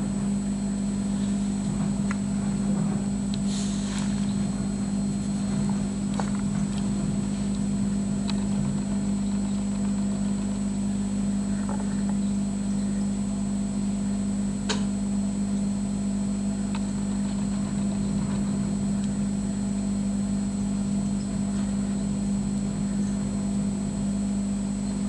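Steady, unchanging low hum of an aquarium pump, with a few faint clicks.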